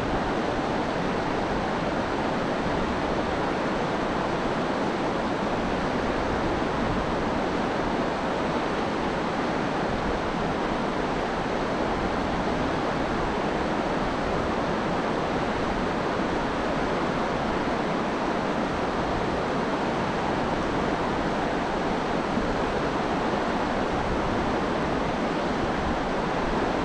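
Steady rush of fast-flowing river water, an even noise with no breaks.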